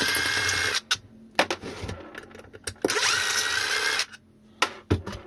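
A small electric screwdriver whirring twice, each time for about a second, its motor whine rising as it spins up while it backs out 2.5 mm hex bolts from a battery case. Sharp clicks and knocks from handling the case come between the two runs.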